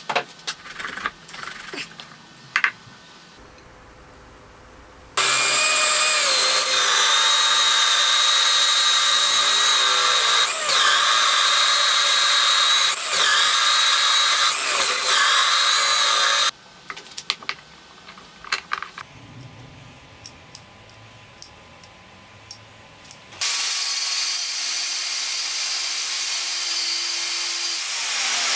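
Electric drill in a drill stand boring into a plywood board. It runs steadily for about eleven seconds with a few brief dips in speed as the bit bites, with light handling clicks before and after. Near the end an angle grinder starts and runs steadily.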